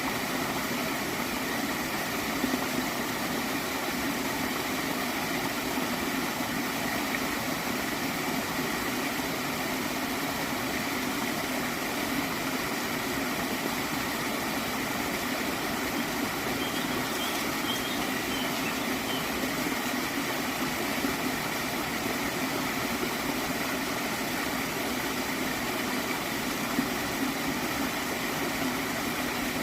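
Steady flowing stream, water running and gurgling at an even level throughout.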